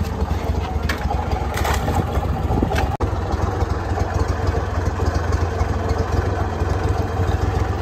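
An engine idling steadily with a low rumble, and a few light knocks in the first three seconds.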